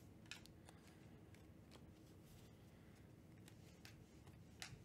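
Near silence with a few faint, scattered clicks of Donruss Optic trading cards being slid and flipped through by hand.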